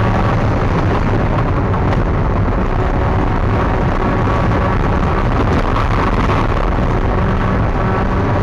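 Spec Miata race car's four-cylinder engine running steadily, heard from inside the car over a constant rush of wind and road noise.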